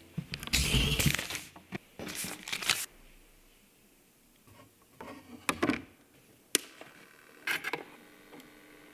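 Handling noises of a suitcase-style turntable and a vinyl record. There is rustling and scraping as the record is handled, loudest about half a second in and again around two seconds in. Then come a few sharp clicks from the turntable's lid, tonearm and controls in the second half.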